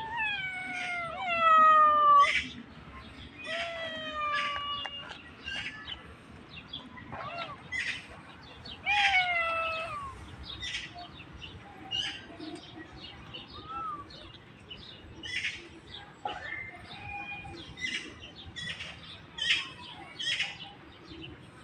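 A cat meowing several times, each meow drawn out and falling in pitch, the loudest about a second or two in; the meows thin out after about ten seconds. Short high chirps run through the rest.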